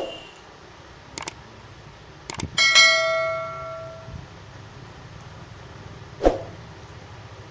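Dishes being knocked and handled during a meal: a few short clinks and knocks, and about two and a half seconds in a strike that sets a metal plate or bowl ringing for about a second and a half.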